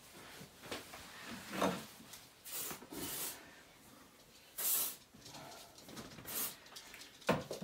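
Aerosol spray, likely deodorant, let off in three short hisses, the first the longest, with faint rustling of clothes between them.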